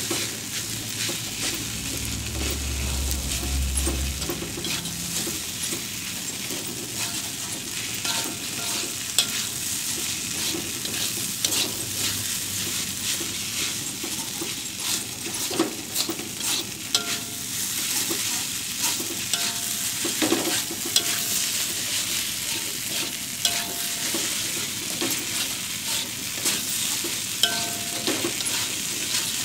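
Fried rice sizzling in a wok, stirred and scraped with a metal spatula, with frequent sharp clicks of the spatula against the pan over a steady hiss.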